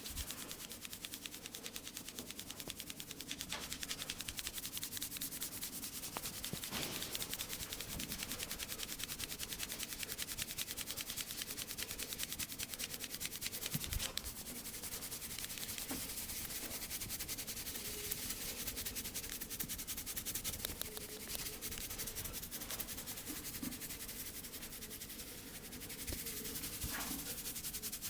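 Hands rapidly rubbing and scratching through hair and scalp in a head massage, a fast, even run of dry strokes.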